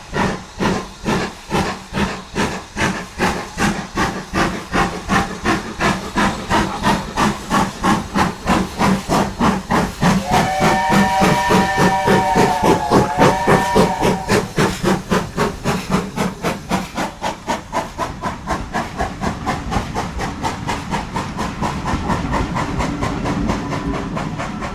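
Steam locomotive working hard, its exhaust beats quickening as it gathers speed. About ten seconds in, its whistle sounds several notes at once for a few seconds, with a short break before a final blast, and the beats then blur into a steadier running rumble.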